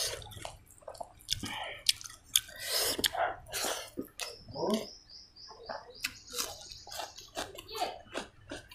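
Close-miked wet eating sounds: fingers squishing and mixing rice and curry, then chewing and lip smacking, with many small wet clicks.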